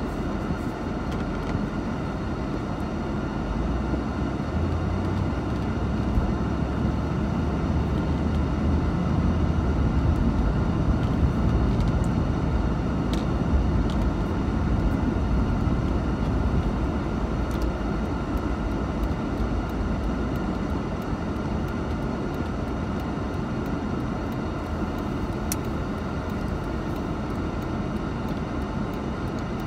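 Inside the cabin of a 1989 Mercedes-Benz 560 SEL on the move: a low, steady rumble of its V8 engine and the tyres. It swells for several seconds about a quarter of the way in as the car pulls away and speeds up, then settles back.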